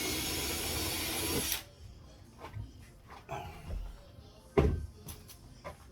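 Power drill boring into the wooden door frame for about two seconds, sizing the stripped screw hole to take a dowel. A few light clicks follow, and a single sharp knock about four and a half seconds in.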